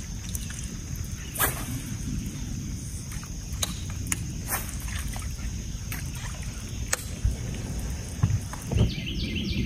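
Steady low rumble on a fishing boat, with scattered sharp clicks and taps from rods and reels as the anglers cast and retrieve crankbaits.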